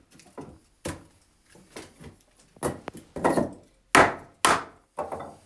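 Pole lathe turning in reverse: a hand tool cutting into the spinning wooden box blank in a run of short, sharp woody cuts and scrapes about every half second. They grow louder, with the two loudest about four seconds in.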